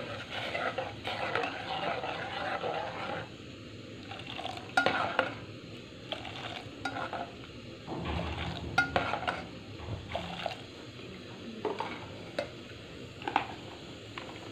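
A steel ladle stirring spiced tea water in a steel saucepan, clinking against the pan now and then. About eight seconds in, the liquid is lifted in the ladle and poured back into the pan with a splash.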